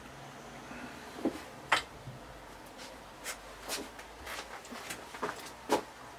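Irregular light metallic clicks and knocks, about seven of them, as the cylinder barrel block of a Honda 400/4 engine is eased down its studs over the pistons while the piston rings are fed into the tapered bores by hand.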